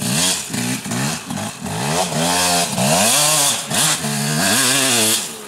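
Dirt bike engine revving as the bike rides past, its pitch rising and falling several times as the throttle is opened and shut.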